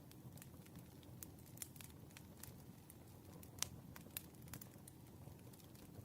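Wood fire crackling softly: scattered small pops and snaps over a low, steady rumble of burning logs, with one sharper pop a little past halfway.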